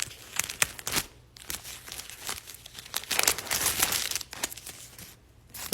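Thin bio-polyethylene pad wrapper being unwrapped and peeled open, with irregular crinkling and crackling that is loudest in the middle and dies away near the end.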